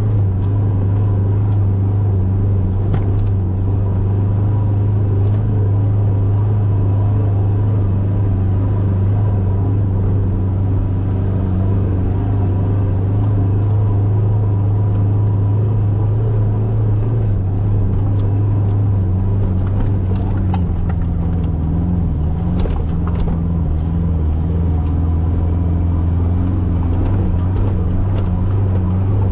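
Mitsubishi Triton ute's engine running steadily under load as it drives up a soft sand track, heard from inside the cab. The engine note dips slightly a little past halfway, and a few short knocks and rattles come in the second half.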